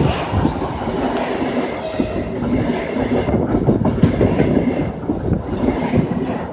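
ES2G Lastochka (Siemens Desiro RUS) electric multiple unit running past at close range, its wheels clattering over the rails.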